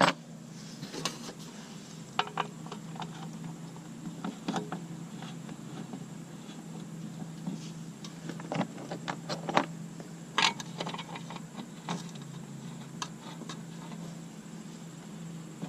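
Scattered light metal clicks and taps of a 3/16-inch Allen wrench and stainless steel bolts being fitted to a license plate, over a steady low hum.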